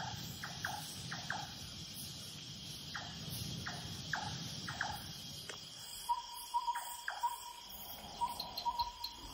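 Tropical evening ambience: insects drone steadily, with short falling chirps repeated in the first half. From about six seconds in comes a string of short piping calls, all at one pitch.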